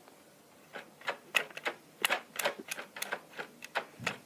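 A run of sharp plastic clicks, irregular at about three to four a second, as the steering of a toy-grade RC car is worked back and forth from its remote.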